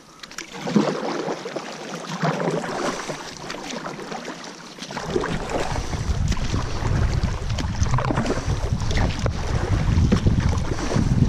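Kayak paddle blades dipping and splashing in calm water, a stroke every couple of seconds. From about five seconds in, wind on the microphone adds a low, steady rumble that becomes the loudest sound.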